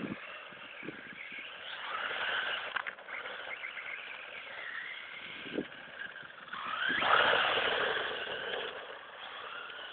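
Reely Pyro 1:10 electric buggy's brushless motor (Feigao 6S7) and gear drive whining as the car speeds up and slows, the pitch rising and falling several times. The loudest burst is a quick rising whine about seven seconds in, with a few short knocks along the way.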